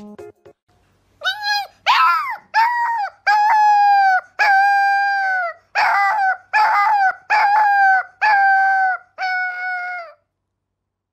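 Husky-type puppy howling: about ten high-pitched howls in a row, each held at a steady pitch for half a second to a second, starting about a second in and stopping shortly before the end.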